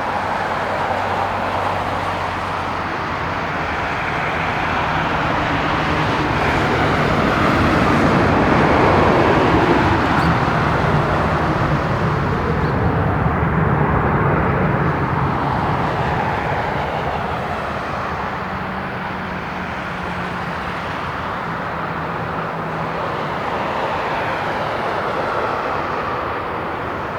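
Boeing 737-900ER's CFM56 jet engines during landing, a loud steady rush that swells to its peak about a third of the way in and then slowly eases off as the airliner rolls out.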